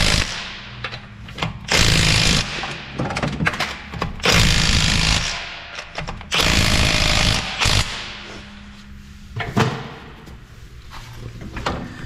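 Cordless impact wrench hammering lug nuts tight, in several bursts of about a second each, up to the roughly 110–120 foot-pounds that the tool delivers. Between the bursts come clicks and knocks as the socket is moved from nut to nut.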